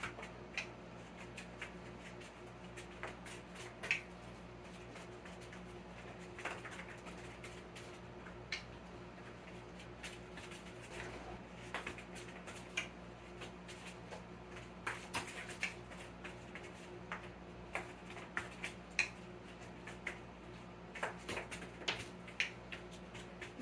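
Scattered light clicks and taps, a few at a time, over a steady low hum: a dog scrambling after tossed treats and eating them.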